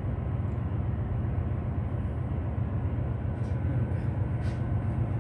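Steady low machinery drone and hum of a ship's running plant and ventilation, unchanging throughout.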